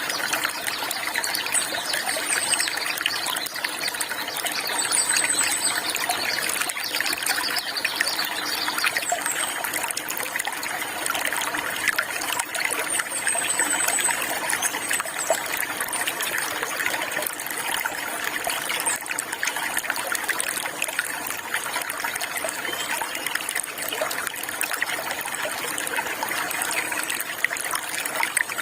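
Flowing water trickling and splashing steadily, with a few faint, high bird chirps in the first half.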